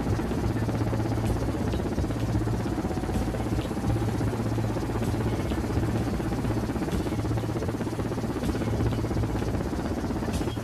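Helicopter running: steady turbine and rotor noise with a low hum that swells and fades about once a second.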